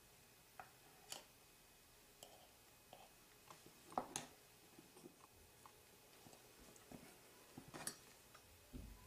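Faint scattered clicks and light taps of small parts and tools being handled during soldering, the loudest a pair about four seconds in and another cluster near the end, over near-silent room tone.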